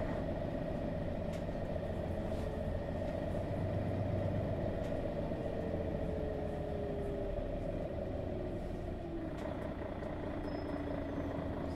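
Mercedes-Benz Citaro G articulated bus's Daimler OM 457 hLA straight-six diesel running steadily, a low even drone, with a faint whine that slowly falls in pitch through the second half.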